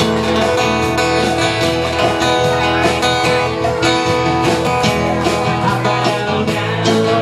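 Live band playing an instrumental passage, guitar to the fore over held notes and a steady beat.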